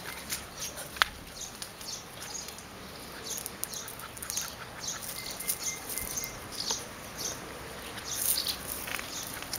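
Welsh terrier and Airedale terrier puppies play-wrestling, their paws scuffing and scrabbling in dry dirt and leaf litter in short, irregular scratchy bursts, with one sharp click about a second in.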